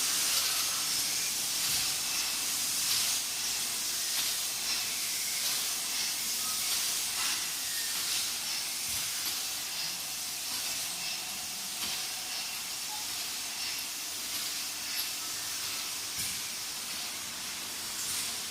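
Automatic oral-liquid turntable filling and aluminium ROPP capping machine running: a steady hiss with faint, irregular clicks.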